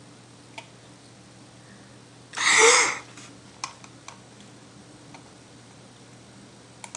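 A boy's voice lets out one short, loud, breathy vocal burst lasting about half a second, about two and a half seconds in. Around it, a few faint single clicks, such as a computer mouse or keyboard, sound over a low steady hum.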